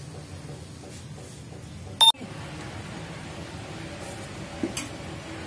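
A single short, loud electronic beep about two seconds in, over a low steady hum. Later come a couple of light knocks of a knife on a plastic cutting board.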